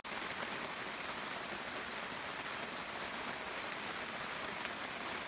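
Heavy rain falling steadily, a continuous even hiss of drops with no separate strikes standing out.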